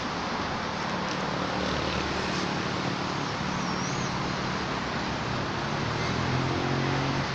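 Steady hiss with a motor vehicle's low engine hum that builds and is loudest shortly before the end.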